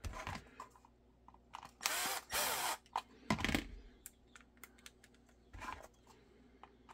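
Milwaukee cordless impact driver run in short trigger pulls, its motor spinning up and down: two bursts about two seconds in, another a second later, and a brief one near the end, with light clicks of handled screws and parts between.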